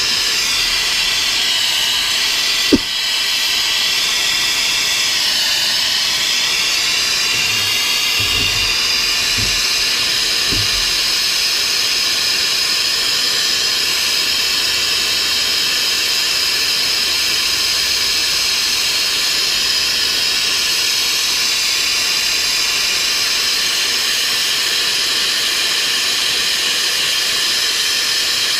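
Gas plumbing torch flame hissing steadily while heating a copper pipe joint, with a single sharp click about three seconds in.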